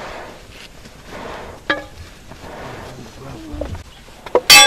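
Metal struck on metal at a blacksmith's forge: a short ringing clink a little under two seconds in, then a loud ringing strike near the end. Under them, soft rhythmic whooshes of air come about once a second.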